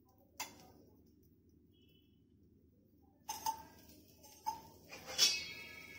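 Metal kitchenware clinking: a single click about half a second in, then a run of clinks and knocks from about three seconds in as a steel spoon and pan are handled. The loudest clink, near the end, rings briefly like struck steel.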